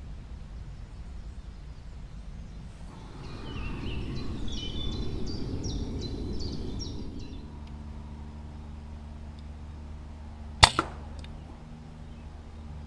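A single sharp air rifle shot about two seconds before the end, the loudest sound here, followed a moment later by a fainter knock. Earlier, from about three seconds in, a bird sings a run of short falling notes for a few seconds.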